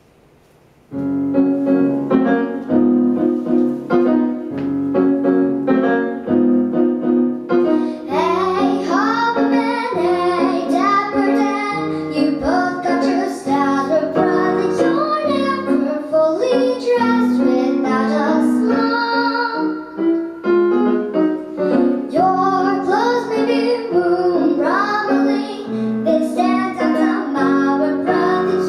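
Piano accompaniment starts about a second in, and a young girl begins singing a show tune over it about eight seconds in.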